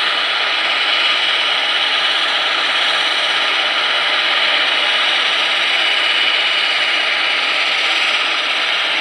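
ATR 72-500's Pratt & Whitney PW127-series turboprop engine running steadily while the aircraft stands parked, a constant rushing noise with a thin high turbine whine over it.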